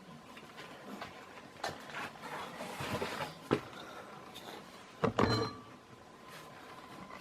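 Packaging of a boxed ceiling fan being handled: plastic wrapping rustling, with scattered knocks, a sharp knock about three and a half seconds in and a louder clatter around five seconds in.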